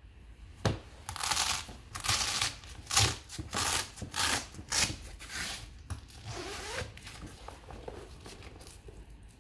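The zip of a fabric fire-resistant document wallet being pulled open in a series of short rasping strokes from about one to five and a half seconds in, followed by softer fabric rustling as the wallet is handled.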